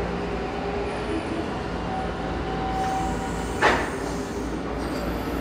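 SkyTrain automated metro train rolling into an underground station and slowing to a stop, with a steady rumble and a held tone. A single sharp thump comes about two-thirds of the way through as it halts.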